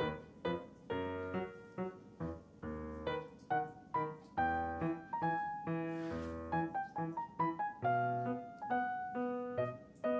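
Background piano music: a steady run of struck notes and chords, each note fading after it is played.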